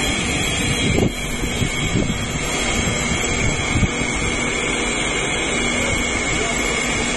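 Oil pyrolysis machine running: a steady mechanical noise with a constant high whine. There are a few low buffets about one, two and four seconds in.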